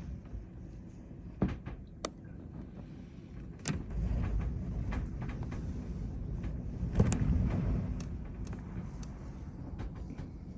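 Blizzard wind buffeting an attic window, a low rumbling rush that swells about four seconds in and again around seven. A few sharp knocks or clicks cut through it.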